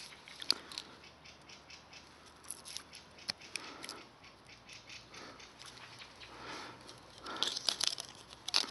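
Scattered small clicks, scrapes and rustles of hands working close to the microphone, with a denser run of rattling scrapes near the end.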